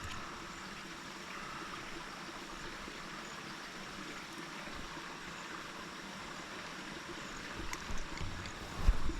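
Steady rush of running water from a small stream or roadside channel. A few short knocks come near the end.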